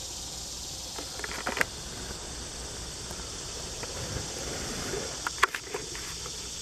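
Steady high-pitched insect chorus from a summer meadow, with a low rumble underneath and a few sharp clicks, the loudest about five and a half seconds in.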